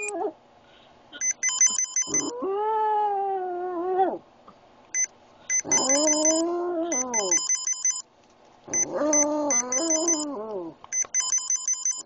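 Boston Terrier howling: three long howls, each rising and then sagging in pitch, the last one wavering. Rapid electronic beeping tones play between and over the howls, the sound that sets the dog off.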